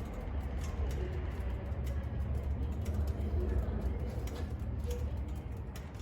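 Kawasaki Z900RS's 948 cc inline-four engine idling steadily, a low rumble with light, quick ticking over it.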